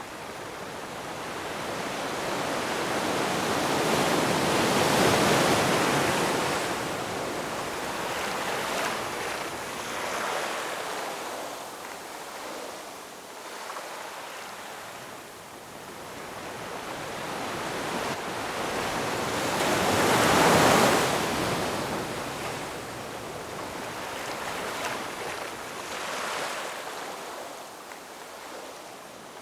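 Ocean waves breaking and washing over rocks, two large swells peaking about five seconds in and again about twenty seconds in, with smaller surges between.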